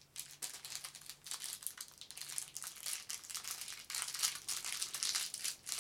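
Candy wrapper crinkling and crackling in irregular bursts as fingers work at opening it, growing louder near the end; the wrapper is hard to get open.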